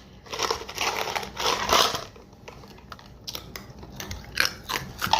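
A run of light clicks and rattles, after two short bursts of hissing noise in the first two seconds.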